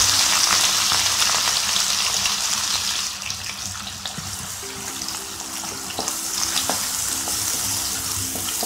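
Freshly added chopped onion sizzling in hot oil with whole spices, loudest at first and easing after about three seconds. Then a wooden spatula stirs it with light clicks and scrapes against the pan.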